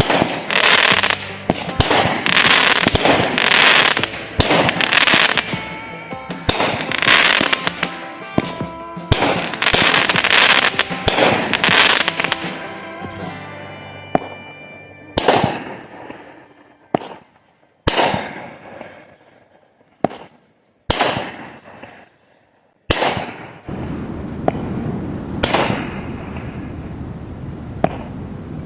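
Fireworks going off: a dense run of overlapping bangs and crackling for about the first half, then single sharp bangs a second or two apart, each trailing off. A country song's last notes are faintly heard under the early volleys, and music starts up again near the end.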